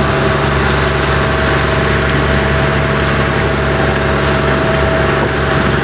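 Fishing boat's engine running steadily, a constant hum with no change in speed.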